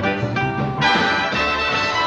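Big-band swing music from the cartoon's soundtrack: a boogie-woogie rhythm of short repeated notes over a bass pulse, then the brass section comes in with a held chord a little under a second in.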